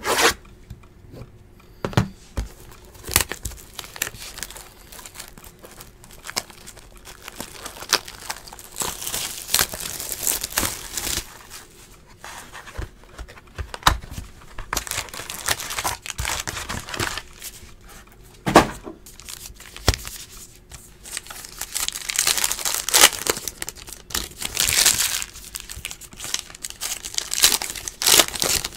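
Box and foil packs of Panini Unparalleled football trading cards being opened by hand: wrappers crinkling and tearing in several spells, with sharp clicks and taps of handling in between.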